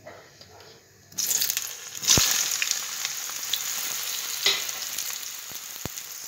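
Soya chunks sizzling as they fry in hot ghee in a kadhai: a steady sizzle that starts abruptly about a second in, with a few sharp clicks over it.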